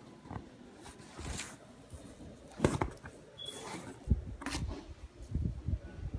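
Unboxing handling: paper and packaging rustling and being moved, with scattered light knocks and scrapes, the loudest a little under three seconds in.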